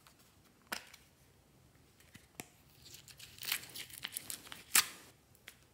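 Small plastic toy makeup compact being handled and opened: a sharp click about a second in, then a run of crackling and clicking over the next couple of seconds, loudest near the end, as the beaded foam clay inside is touched and pulled.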